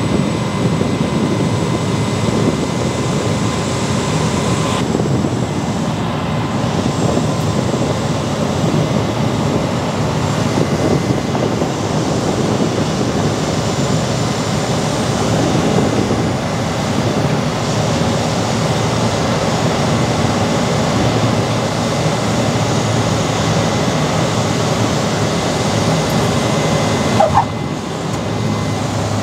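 Cabin noise of a Cessna Caravan single-engine turboprop on final approach with flaps down: a loud, steady engine-and-propeller drone mixed with wind rush. Near the end a brief sharp sound as the wheels touch the runway, after which the noise drops slightly.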